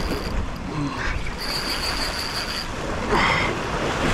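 Sea surf washing around rocks, with wind on the microphone. A thin, high, steady whine comes and goes in short stretches, and a brief sharper noise comes about three seconds in.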